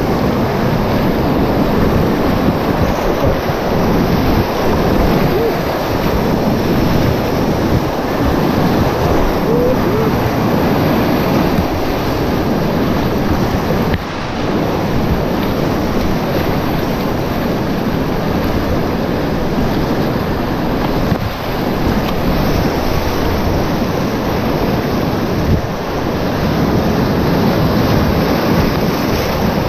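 Whitewater river rapids rushing loudly and steadily, heard close to the water from a kayak running through them.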